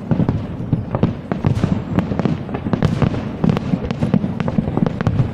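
Fireworks display: a dense, continuous barrage of crackling bangs, many sharp reports a second over a low rumble.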